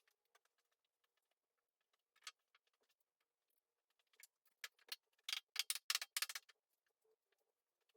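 A run of light, sharp clicks and short scratchy strokes, sparse at first and bunching together briefly about two-thirds of the way through.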